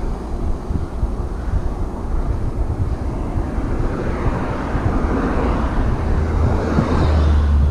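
Wind rumbling on the microphone of a mountain bike rider moving along a road, strongest near the end. Cars pass in the next lane, their road noise swelling and fading through the middle.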